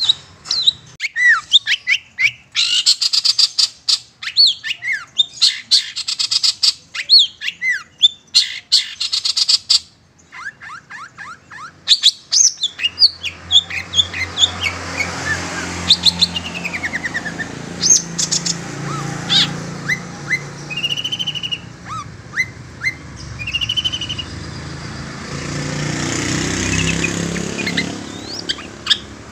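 Long-tailed shrike calling: rapid runs of short falling chirps and harsh chatter, dense for the first ten seconds, then sparser chirps and a couple of short whistled notes over a steady low background hum that swells near the end.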